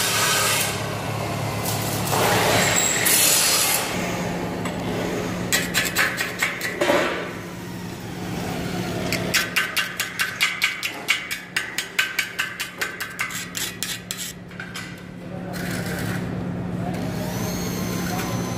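Slag being scraped off fresh stick (arc) welds on steel with a hand tool: rapid strokes, roughly four a second, in a short run and then a longer run of several seconds. A steady low hum runs underneath.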